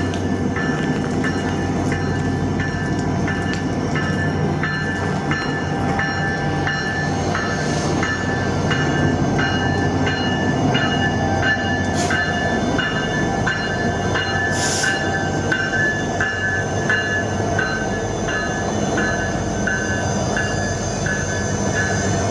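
Alaska Railroad passenger train at the station, its diesel locomotive running steadily. A ringing stroke repeats evenly, about three times every two seconds, and short hisses come about a third, half and two-thirds of the way through.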